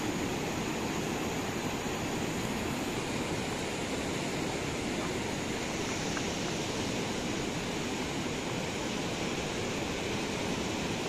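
Fast, silty river rushing through shallow rapids and around a boulder: a steady, even rush of water that stays level throughout.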